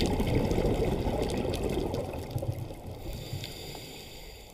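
Water rushing and splashing, loudest at the start and fading away gradually.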